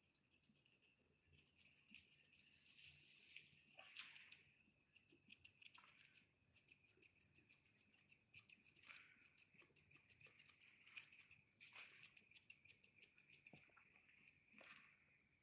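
Grooming scissors snipping fur on a toy poodle's face: quick runs of metallic snips, several a second, in bursts with short pauses, thinning out near the end.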